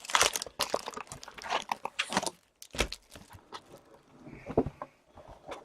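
Trading card packs and cards being handled: rustling wrapper and quick small clicks and taps, busiest in the first two seconds, then sparser.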